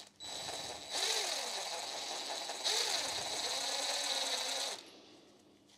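DeWalt cordless impact wrench running for about four and a half seconds, undoing a connecting-rod cap bolt on an engine block. It gets louder about a second in and again near the middle, then stops suddenly.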